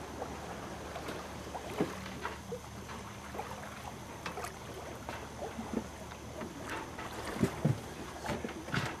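A sailboat moving under sail, with water washing along the hull and wind on the microphone, plus scattered faint clicks and creaks aboard.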